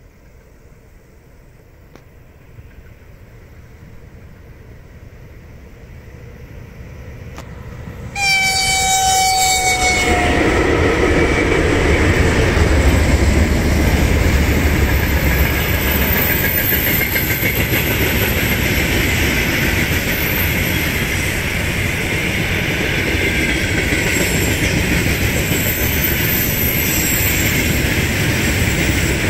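VL11M electric locomotive with a freight train: its approach grows steadily louder, then about eight seconds in it sounds its horn in one blast of about two seconds, dropping slightly in pitch. The locomotive and the long line of freight wagons then pass close by, their wheels making a loud, steady rumble on the rails.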